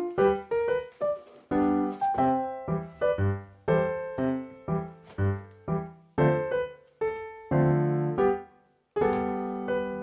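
Background piano music: a steady run of single struck notes and chords, each ringing and fading, with a short break about nine seconds in.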